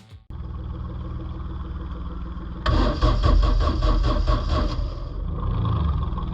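Car engine being cranked by the starter for about two seconds, then catching and running loudly, settling slightly near the end.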